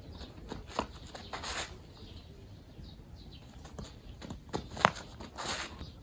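Sneakered footsteps scuffing and crunching on a gravel ground as a boy runs in to field a slow grounder, with one sharp smack nearly five seconds in.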